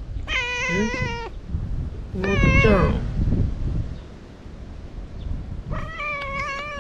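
A white-and-tabby cat meowing three times, each call lasting about a second, the middle one bending down in pitch at its end.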